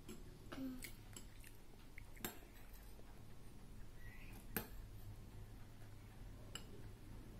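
Metal spoon clinking against a small ceramic bowl while a child scoops his breakfast, with two sharper clinks about two and four and a half seconds in, and soft chewing between them.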